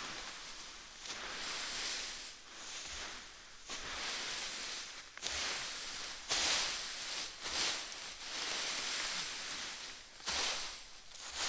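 Rustling, scraping noise in uneven bursts a second or two long, several of them starting abruptly.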